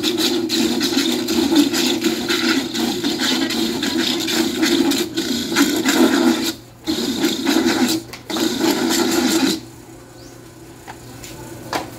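Electric coconut grater running with a steady motor hum and a rasping, scraping noise. It cuts out briefly twice and then stops about nine and a half seconds in.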